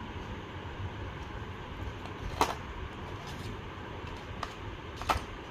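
Two sharp knocks, about two and a half seconds in and again near the end, from plastic miniatures handled and set down against the cardboard game box, over a steady background hum.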